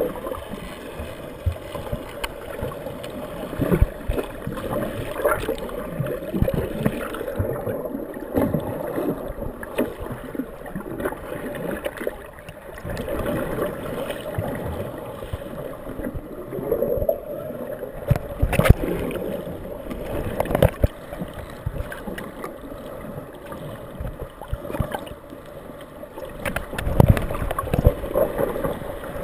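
Muffled underwater water noise heard through a GoPro camera's waterproof housing while swimming: irregular rushing and gurgling, with a few sharp knocks, the loudest about two-thirds of the way through.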